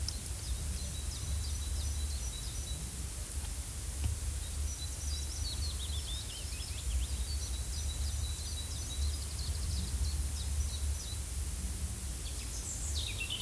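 Forest ambience: small birds chirping in short, high, repeated notes, with a quick run of falling notes about five seconds in, over a steady low rumble.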